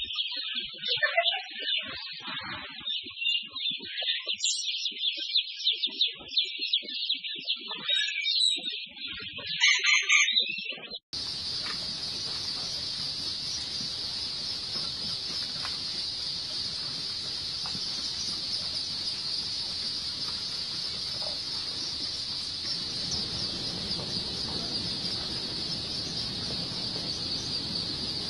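Many baby chicks peeping, a dense high-pitched cheeping. About eleven seconds in it cuts abruptly to a steadier, more even chorus from a much larger flock of chicks.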